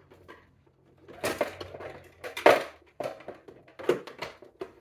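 Hard plastic rear cover of a SodaStream Jet sparkling water maker knocking, scraping and clicking as it is pushed shut over the CO2 cylinder, with a few louder knocks. The top closes but the bottom will not sit snug.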